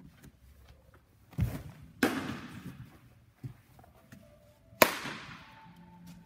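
Sharp pops and knocks with echoing tails, four in all, the loudest near the end; among them a fastball of about 90 mph smacking into a catcher's leather mitt.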